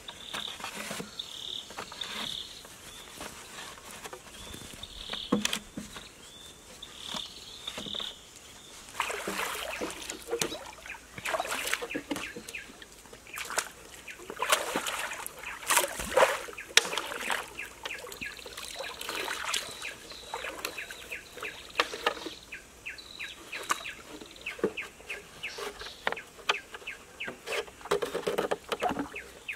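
Hollow green bamboo poles knocking and clattering against each other as they are laid side by side and lashed into a raft, the knocks starting about nine seconds in and coming in quick runs toward the end. High chirps from birds and insects sound in the first few seconds and again later.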